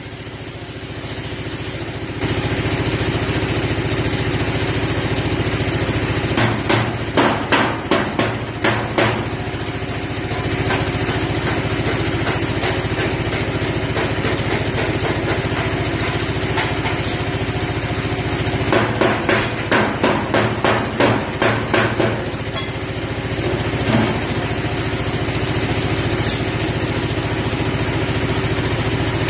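Two runs of quick hammer blows on a sheet-metal boat hull, about three a second, each lasting a few seconds, with a single blow near the end. Underneath, a steady engine hum.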